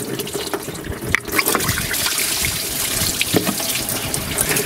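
Orange Dex-Cool coolant draining out of the open thermostat housing and radiator hose of an LS V8, splashing and trickling steadily down into a drain bucket, with a few small clicks.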